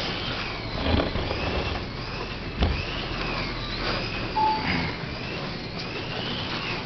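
Small electric slot car motors whining, their pitch rising and falling, over a steady background hum, with a single knock about two and a half seconds in and a brief short tone a little later.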